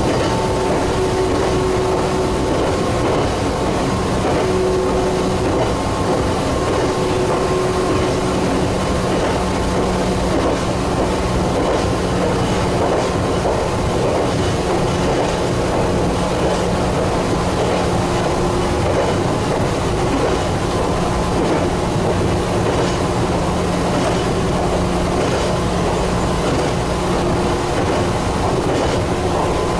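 Meitetsu 6000 series electric train running along the line, heard from inside at the front: a steady running noise with a hum, and now and then a click from the wheels on the rails.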